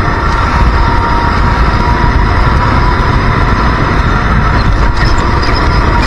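Racing kart engine running at speed with a steady high engine note, heard up close from a camera mounted on the kart.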